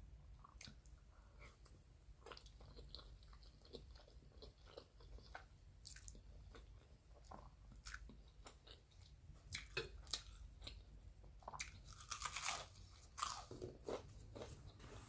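Faint close-up chewing and wet mouth sounds of a person eating spaghetti, with scattered smacks and clicks that grow busier and louder about twelve seconds in.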